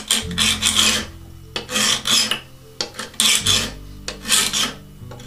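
Hand file rasping across the edge of a thin steel scratch stock cutter cut from an old panel saw plate, in a series of short push strokes with a brief pause partway through. The sides are being filed back to shape the beading cutter's profile.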